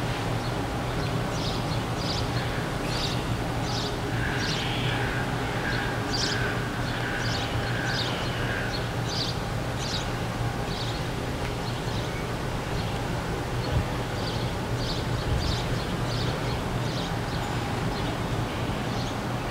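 Diesel locomotive idling with a steady low hum, while birds chirp over it again and again.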